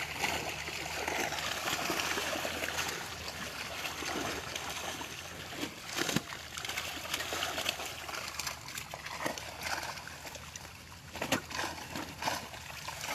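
Muddy shallow water splashing and sloshing as a fishing net is hauled and gathered through a drained pond, with irregular sharper splashes, the loudest about six seconds in and another near the end.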